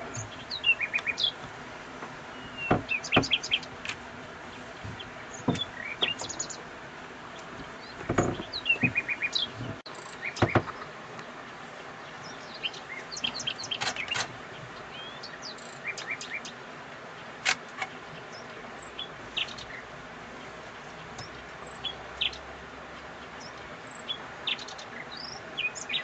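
Common nightingale singing: short, varied phrases of rapid repeated notes, whistles and rising slurs, separated by pauses, with a few sharp clicks among them in the first half.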